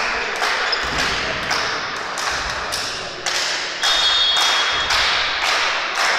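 Spectators in a sports hall keeping a steady rhythm of sharp thumps, about two a second and echoing in the hall, over a continuous crowd noise.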